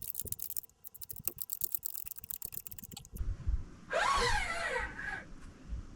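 A fast run of sharp mechanical clicks for about three seconds, then a short squeal with falling pitch.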